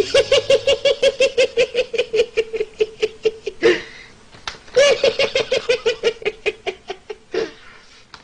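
A man's high-pitched, rapid staccato laughter, about six or seven bursts a second, in two long bouts that each end in a sharp gasping breath in.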